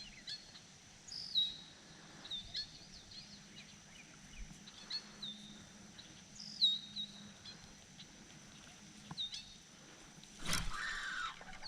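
Small birds chirping outdoors: short, high chirps every second or two over a faint steady background. Near the end comes a brief knock followed by a couple of seconds of rustling.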